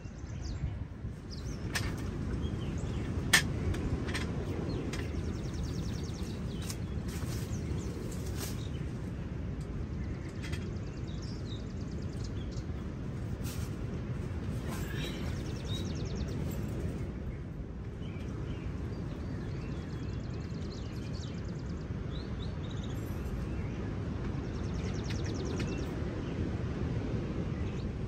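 Wind buffeting the microphone in a steady low rumble, with birds chirping now and then and a sharp click about three seconds in.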